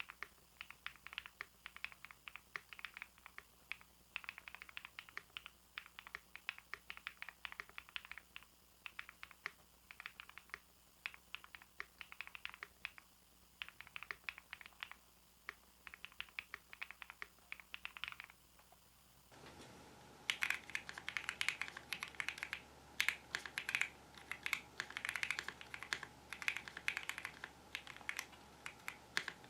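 Continuous fast typing on a Bridge75 mechanical keyboard, an irregular clatter of key strokes. For the first two-thirds it has MMD Princess switches and stock keycaps; about two-thirds through it cuts to the modded board with Wuque Studio Basic Yellow keycaps and Kailh Heavy Burnt Orange Clickiez switches on the Fn and modifier keys, where the key strokes are louder over a steady background hiss.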